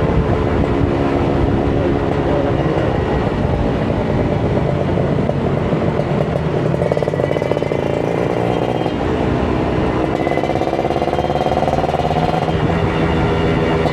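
Kawasaki Ninja 150 RR's two-stroke single-cylinder engine pulling on the move, its revs easing off, then climbing steadily, dropping suddenly near the end and climbing again as the next gear takes up.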